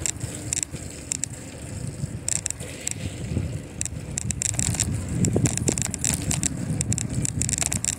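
Bicycle rolling along the road: tyre and road noise with frequent short rattling clicks from the bike, and some wind on the microphone.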